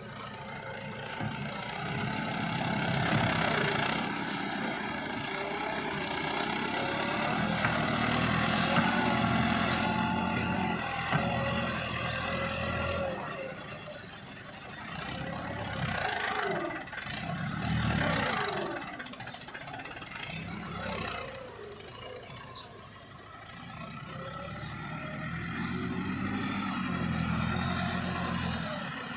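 Tractor diesel engine running and revving up and down as the front-end loader works, louder in the first third and again near the end.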